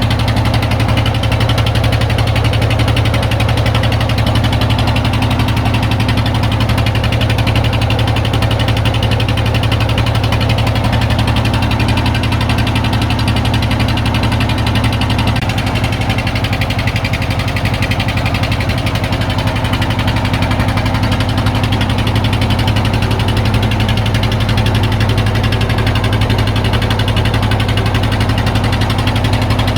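A motor engine running steadily at constant speed, with a strong low hum and no change in pitch, cutting off abruptly at the end.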